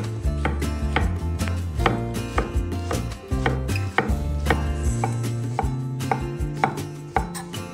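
Chef's knife slicing brown mushrooms on an end-grain wooden cutting board: a steady run of knife taps, about two to three a second, each stroke striking the wood. Background music with a low bass line plays underneath.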